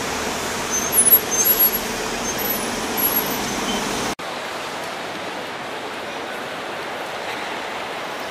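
Road traffic by a kerbside drop-off: a steady hum of vehicle engines and tyres, with a few short high chirps over it. About four seconds in it cuts off suddenly to the quieter, even hum of a large indoor hall.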